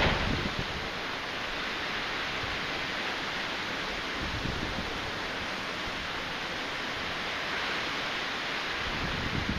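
Typhoon wind blowing in a steady rush, with low gusts buffeting the microphone near the start, about halfway through and near the end.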